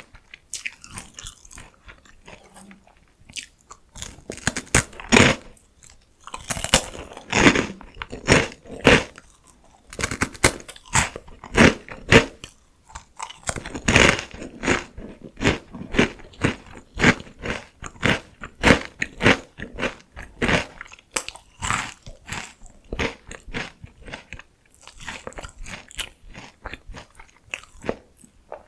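Close-miked crunching and chewing of crisp salty potato sticks: rapid, irregular crunches as each mouthful is bitten and chewed.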